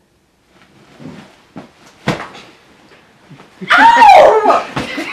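Rustling of fabric as two people tussle on a couch, with a sharp smack about two seconds in. Near the end a loud, high-pitched shriek breaks out and voice carries on after it.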